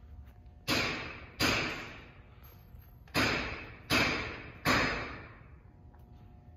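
Five sharp, echoing bangs, two and then three about three-quarters of a second apart, each ringing out for most of a second.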